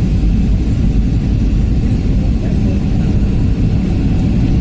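Steady low rumble of engine and rolling noise inside an airliner's passenger cabin as the plane rolls along the ground after landing.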